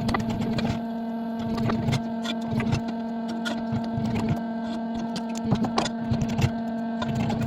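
An electric machine motor humming steadily at one pitch, with irregular clicks and knocks over it.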